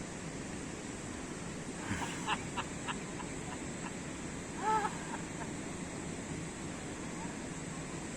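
Steady wind and water noise. About two seconds in comes a quick series of short, high calls, and near five seconds in one brief pitched call.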